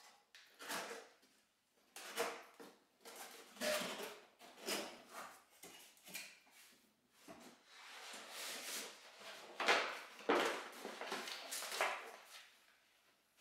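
Cardboard box being opened and its contents handled: irregular rustling, scraping and knocks of cardboard and paper. Near the end, large paper decal sheets are slid out and laid on a wooden table.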